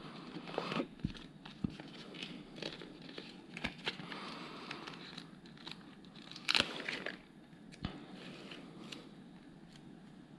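Small clicks and crinkly rustles of hands handling LEGO Technic plastic parts and a sticker sheet while applying stickers. There is a louder rustle about six and a half seconds in.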